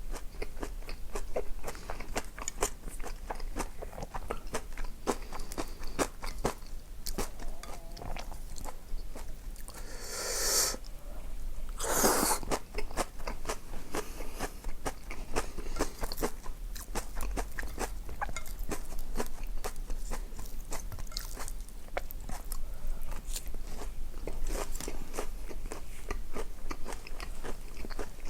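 A person chewing and crunching food, a dense run of small crisp clicks, with two louder rushing noises about ten and twelve seconds in.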